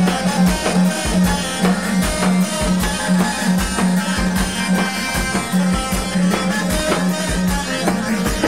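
Loud Arabic wedding-band music without singing: a plucked, guitar-like melody over a steady drum beat and an evenly pulsing bass note.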